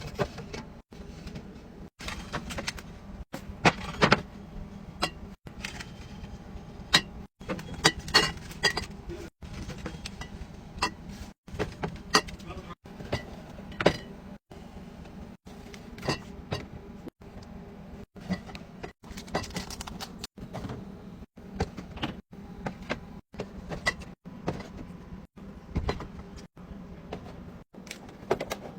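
Drink cans and bottles being set down and stacked into a fridge: a string of irregular clinks and knocks, broken often by abrupt cuts.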